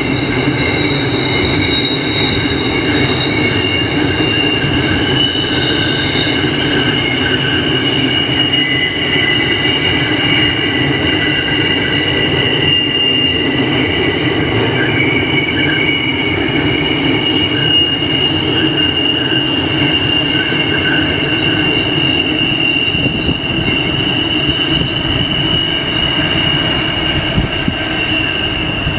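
Coal hopper wagons of a freight train rolling past with a steady rumble, their wheels giving a continuous high-pitched squeal of several held tones.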